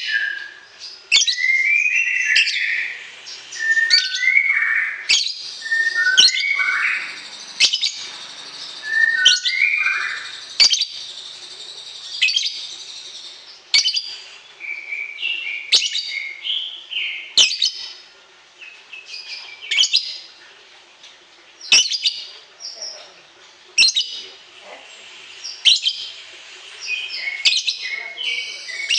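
A songbird calling over and over: sharp chipping notes and short whistled phrases, about one every second or two.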